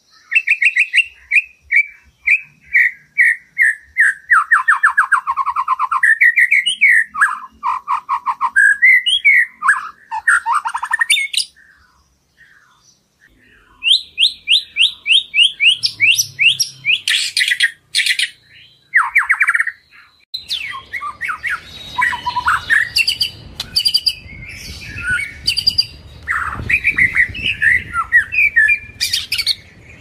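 White-rumped shama singing a varied song made of repeated whistled notes, fast trills and quick runs of notes, with a short pause about twelve seconds in. From about twenty seconds in, a low rumbling background noise sits under the song.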